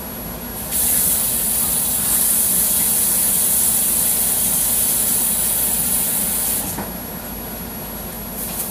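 Kitchen sink tap running: a steady hiss of water that starts abruptly about a second in and cuts off about six seconds later.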